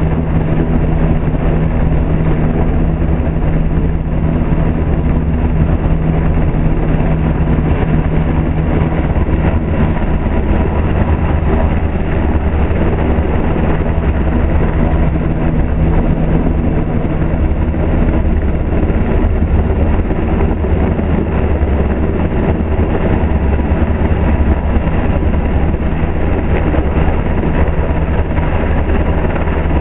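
US Coast Guard Sikorsky Jayhawk helicopter hovering low overhead, its rotor and turbines running steadily and loudly, with the rotor downwash buffeting the microphone.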